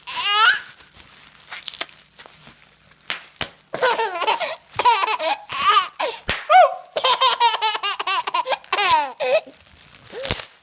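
Baby laughing: rapid strings of high-pitched belly laughs in two long runs, with a few short sharp clicks in the quieter pauses between.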